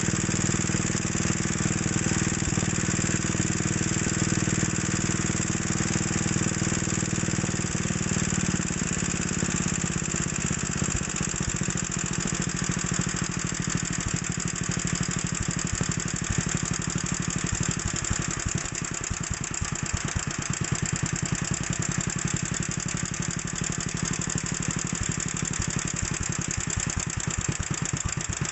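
Small air-cooled engine idling, then slowed about ten seconds in to a very slow idle, held down by hand below what the governor allows, so that each firing stroke is heard as a separate even beat.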